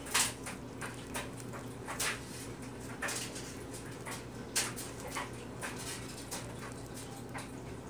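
Beaded slime being squeezed, folded and stretched by hand, giving short wet squelches and pops about once a second at an uneven pace.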